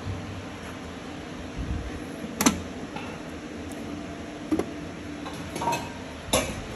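A few sharp metallic clicks and clunks as the hinged sheet-steel cover of a machine's main disconnect switch box is handled, unlatched and swung open. The loudest click comes about two and a half seconds in.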